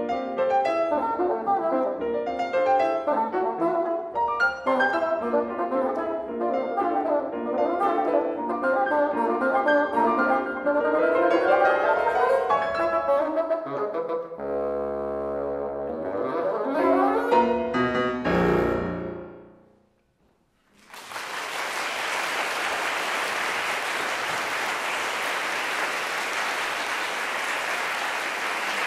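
Bassoon and piano playing the closing bars of a concerto movement, ending on a final held chord that cuts off about eighteen seconds in. After a moment of silence, an audience breaks into steady applause.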